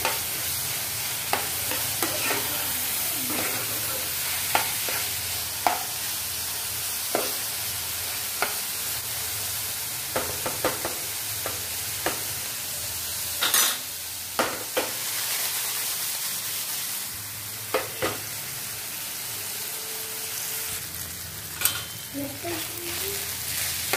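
Boiled fusilli pasta and chopped vegetables sizzling in hot oil in a frying pan while being stirred and tossed with a spatula. A steady sizzle runs under irregular scrapes and knocks of the spatula against the pan, with the sharpest knock about halfway through.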